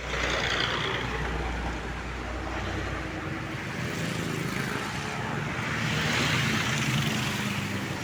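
Road traffic: engine hum and tyre noise from passing vehicles, swelling as one goes by about six seconds in.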